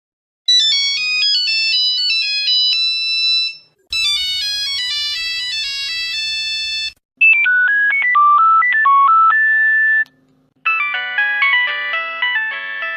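Nokia mobile phone ringtones: four short melodies of quick, high-pitched electronic notes played one after another, each about three seconds long with a short break between, the later two over a low steady hum.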